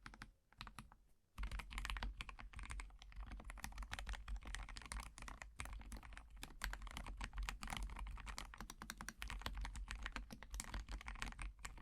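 Typing on a FancyAlice66 acrylic-stacked, gasket-mounted Alice-layout mechanical keyboard with Everglide Aqua King linear switches and AKKO ASA Clear keycaps. A few scattered keystrokes, a short pause, then a fast, steady run of keystrokes that stops near the end.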